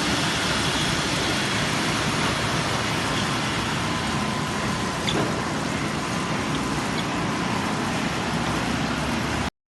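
Steady running noise of machinery, an even hiss-like din with a faint steady tone in it and a single small click about five seconds in.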